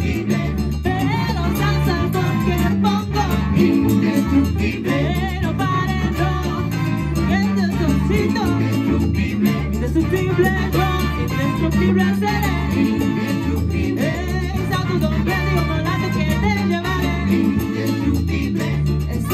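A live Latin band playing salsa-style music with a steady beat, from a stage band of horns, guitars, keyboard and percussion.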